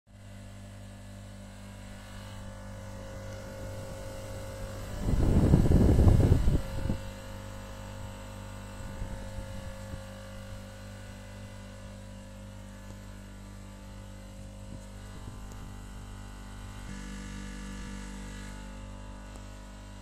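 Outdoor air-conditioning unit running with a steady electrical hum that holds a few constant tones. A loud rumbling burst about five seconds in lasts roughly two seconds.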